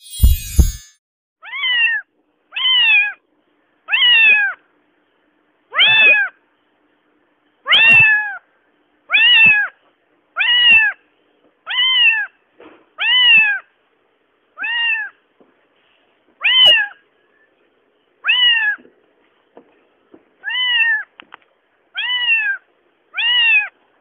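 Domestic cat meowing over and over: about fifteen separate short meows, one every second or two, each rising then falling in pitch.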